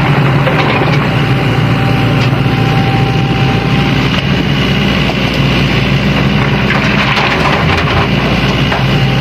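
Sany SY75C excavator's diesel engine running steadily at working speed, with a few faint knocks over the drone.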